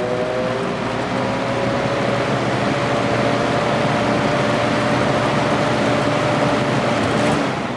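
1983–84 Lasko box fan running on medium speed: a steady rush of air from the blades with a pronounced motor hum over it. Near the end the hum drops out and the sound starts to fade.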